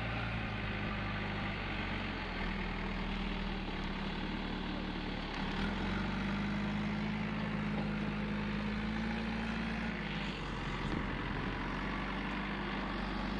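JCB 3DX backhoe loader's diesel engine running steadily as the machine drives. The engine note rises slightly about five and a half seconds in and drops back about ten seconds in.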